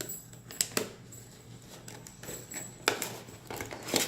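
Small cardboard retail processor box being opened by hand: a few sharp clicks and taps of the flaps and packaging with light handling rustle, the loudest about three seconds in and just before the end.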